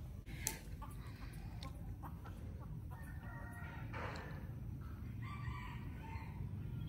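A chicken calling twice, about three and five seconds in, over a low steady hum. A sharp click comes about half a second in.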